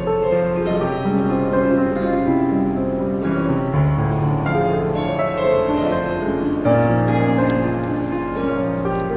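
Background music led by piano, with soft held chords that change every second or two and no singing.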